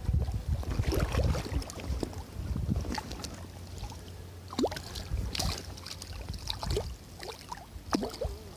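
Strong wind buffeting the microphone, a heavy rumble that is loudest in the first few seconds and then eases, with scattered sharp clicks over it.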